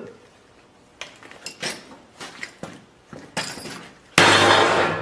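A few light knocks, then about four seconds in one heavy sledgehammer blow on a tack-welded steel T-joint fillet-welded with 6011 rod: a loud metallic clang that rings on. It is the first strike of a hammer break test of the weld.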